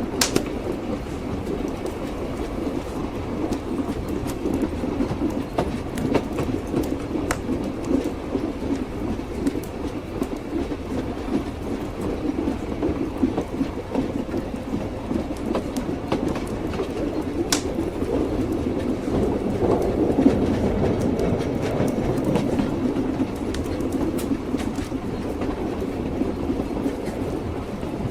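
Train wheels clattering on the rails with a steady rumble and scattered sharp clicks, swelling a little about twenty seconds in.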